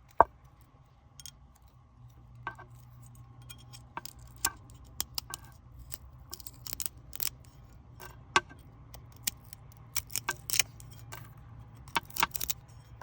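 Irregular sharp clicks and light taps of small objects being handled, some coming in quick clusters, over a faint steady low hum.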